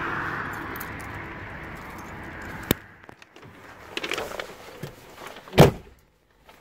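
Mercedes-Benz W123 coupe's door being shut: rustling as someone gets into the seat, a sharp click a little under three seconds in, then one heavy thump about five and a half seconds in, after which the cabin goes nearly silent. A fading hiss of background noise runs under the first few seconds.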